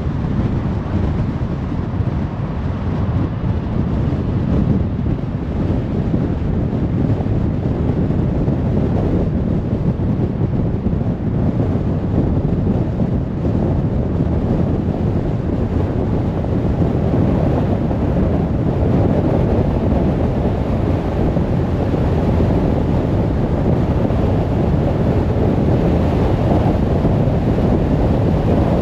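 Steady road noise of a car driving at motorway speed: a low rumble of tyres and wind that holds even throughout.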